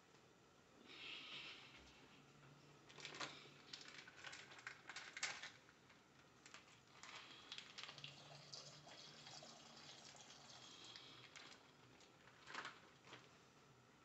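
Faint sound of milk being poured over whole strawberries into a glass blender jar, a soft trickling and splashing. There are a few short clicks and knocks a few seconds in and again near the end.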